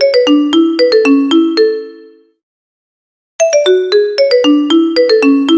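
Nokia phone tone: a quick melody of struck, ringing notes. It ends about two seconds in, and after a second of silence the same phrase starts again.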